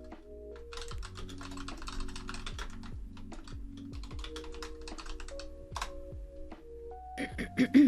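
Typing on a computer keyboard: a quick run of key clicks in the first few seconds, then slower scattered keystrokes, over background music. A brief louder pitched sound comes near the end.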